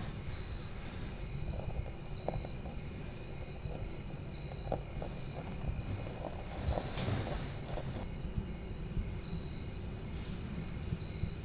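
Steady high-pitched chirring of crickets as a night ambience, over a low rumble, with a few faint soft ticks.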